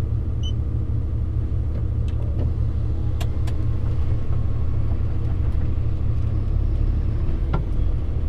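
DAF CF lorry's diesel engine running steadily, a low drone heard from inside the cab, with a short high beep about half a second in and a few light clicks.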